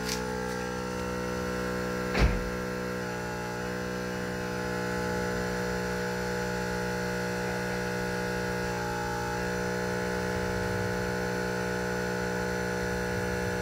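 Xiaomi 70mai portable car air compressor running steadily with an even electric hum as it inflates a collapsible space-saver spare tyre, still below half a bar. A single knock about two seconds in.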